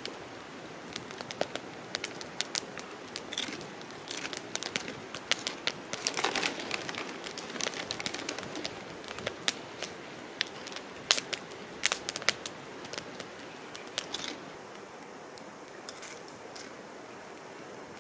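Someone eating chips and salsa: chips crunching and a chip bag crinkling, heard as irregular sharp crackles.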